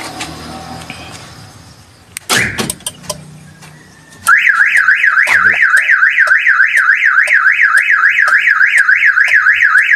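A sharp knock about two seconds in, then a loud car alarm siren starts a little after four seconds, warbling up and down about four times a second: the siren of an aftermarket remote central-locking alarm kit being tested after installation.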